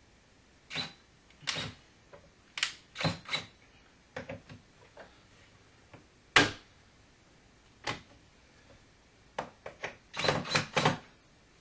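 Irregular clacks and knocks of wooden shutter parts and mounting hardware being handled and fitted at a window frame: about a dozen short, sharp sounds, the loudest about six seconds in and a quick run of them near the end.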